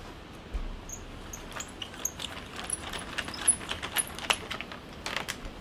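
Irregular light clicks and small metallic jingles from handling bike parts or gear, over a steady low rush of wind.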